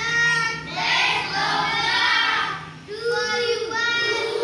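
A child's voice reading a textbook aloud in a sing-song chant, in long drawn-out phrases with short breaks between them.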